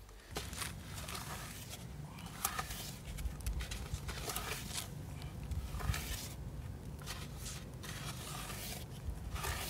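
Wooden board scraped across loose river sand to level it, a scratchy rasping that comes and goes with each stroke, over a low steady rumble.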